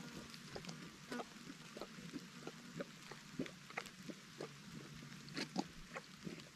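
A donkey eating watermelon pieces and grass close by: a run of irregular crunching and snapping chews, several a second and uneven in strength.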